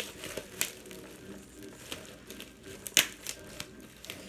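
Duct-taped bubble wrap being pulled off and unwrapped by hand: crinkling and crackling with scattered sharp snaps, the loudest about three seconds in.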